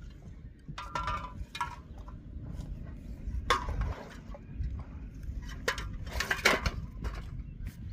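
Hard items clinking and clattering as they are handled: a string of separate knocks, each with a short ringing, the loudest cluster about six and a half seconds in.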